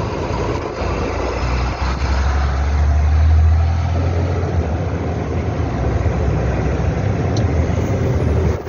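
Engine and road noise heard from inside the cab of a moving heavy vehicle: a steady rumble with a deep engine drone that grows louder about two seconds in and eases off after about four seconds.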